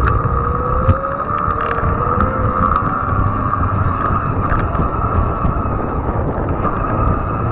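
Fat-tire e-bike rolling over asphalt: a steady hum and rumble from the wide tyres, with wind on the bike-mounted microphone. A thin whine rises in pitch over the first second or so.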